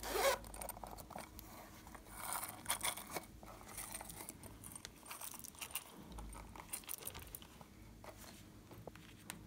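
Small handling sounds over a glass dish of slime: light clicking and rattling as leaf-shaped sprinkles are tipped onto the slime, with a short falling squeak at the very start and a louder rustle about two to three seconds in.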